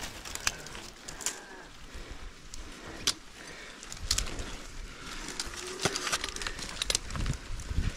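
Dry coconut palm fronds and husk fibre rustling and scraping as a climber shifts at the crown of the palm. Scattered sharp clicks of steel carabiners and climbing hardware, a few louder about half a second in, around three seconds and around six seconds.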